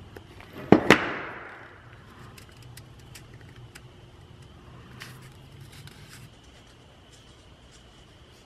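Two sharp knocks in quick succession about a second in, ringing briefly, as a tool or part is set down hard during hand work. Light clicks and handling noises follow over a low steady shop hum.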